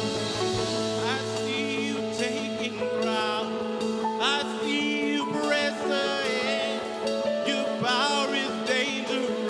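Worship band music: sustained keyboard-like chords held steady under a melodic lead line that wavers with vibrato and slides upward in pitch several times.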